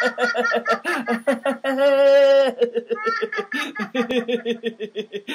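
People laughing on purpose in quick, rhythmic ha-ha-ha pulses, with one long held 'aah' about two seconds in. This is the deliberate, exaggerated laughter of a laughter-yoga exercise.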